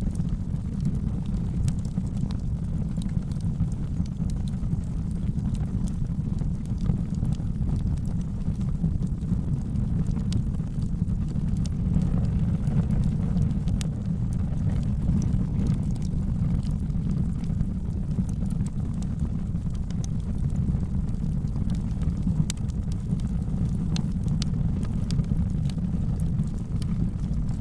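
Wood fire burning in a fireplace: a steady low rumble with scattered small crackles and pops throughout.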